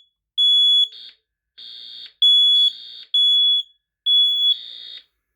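Hardwired AC smoke detector sounding its alarm: loud, high-pitched beeps of about half a second each, in groups of three with a longer pause between groups. Fainter, rougher beeps from a second alarm sound fall into the gaps, out of step with it.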